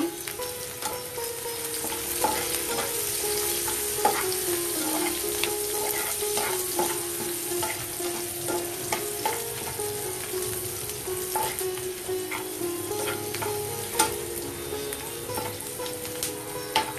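Sliced onions and whole spices (bay leaf, cinnamon, cloves, cardamom, fenugreek seeds) sizzling in hot oil in a non-stick frying pan, stirred with a spatula that scrapes and taps against the pan. The sharpest tap comes near the end.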